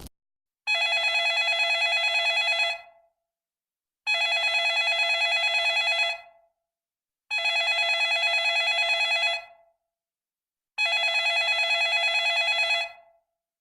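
A telephone ringing four times, each ring a fast trill about two seconds long with silent gaps between.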